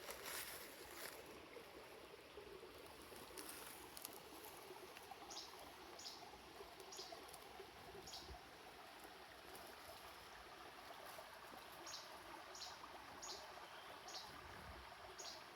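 Faint woodland ambience: a steady soft rush with a few light clicks, and two runs of short, high chirps about a second apart, in the middle and near the end.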